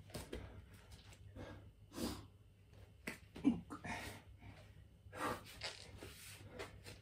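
A man breathing hard after a bodyweight planche set: a string of heavy, noisy breaths, irregular and about one a second, one of them voiced about halfway through.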